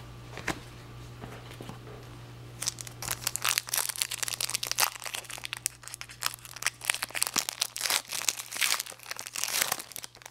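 Foil trading-card pack wrapper crinkling and tearing as it is handled and opened. The rapid crackling starts about two and a half seconds in and keeps up until just before the end.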